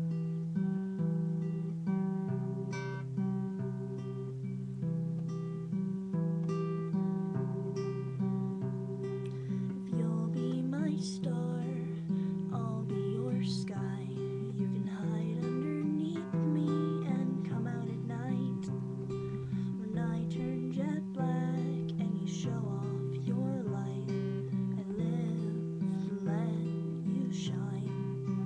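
Acoustic guitar played in a steady, repeating chord pattern, starting right at the beginning.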